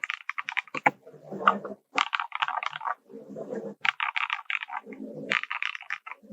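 Typing on a Novelkeys Classic TKL mechanical keyboard with KTT Hyacinth v1 linear switches and Drop MT3 Cyber keycaps: fast runs of key clacks, with three short, deeper and duller stretches in between.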